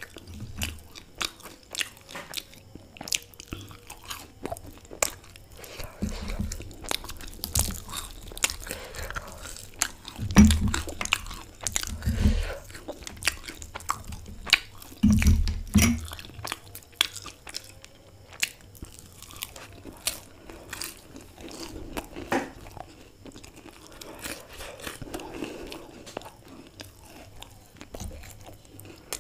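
Close-miked mukbang eating: chewing and crunching of fried samosa pastry and filling, with many small crisp clicks and a few heavier low thumps.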